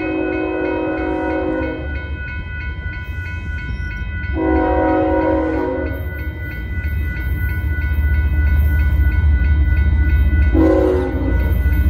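Locomotive horn sounding a long blast, a second long blast and then a short one, the pattern of the long-long-short-long grade-crossing signal. Under it is the low rumble of the approaching train, growing louder.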